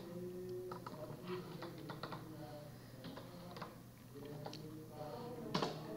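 Computer keyboard typing: a string of irregularly spaced key clicks as a web address is typed.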